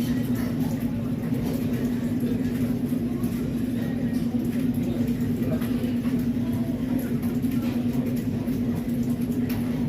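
Steady low mechanical hum over an even rumbling noise, with faint scattered ticks.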